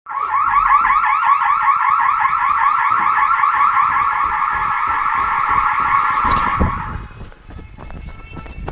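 Electronic alarm sounding a fast, repeating rising chirp, about five chirps a second, loud and steady, then cutting off suddenly about seven seconds in, just after a sharp knock. It is the kind of tone that alerts a volunteer firefighter to a call-out.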